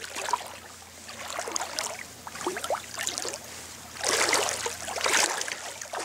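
Feet wading through ankle-deep water over a pebble bottom: small splashes and trickles, with louder sloshing from about four seconds in.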